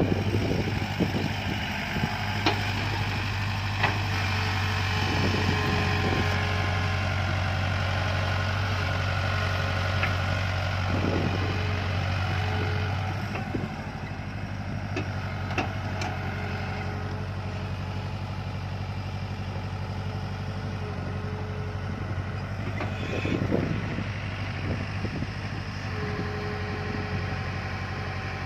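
JCB backhoe loader's diesel engine running steadily while digging, with occasional sharp knocks; the engine gets a little quieter about halfway through.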